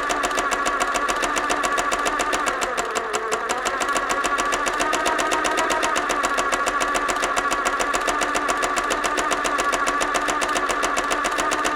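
Sewing machine running steadily as it sews, its needle mechanism clattering in a fast, even rhythm.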